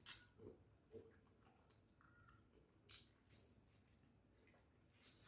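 Faint eating sounds: a few short clicks and crinkles as food is picked up by hand from aluminium foil, with chewing and lip smacks, more of them close together near the end.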